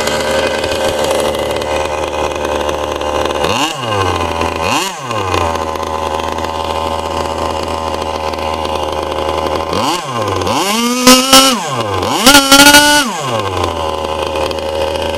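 K&B .72 glow model engine in a Byro-Jet ducted fan unit, running steadily at low revs. It is blipped up and down twice about four seconds in, then revved up and held high twice for about a second each near the end, which is the loudest part.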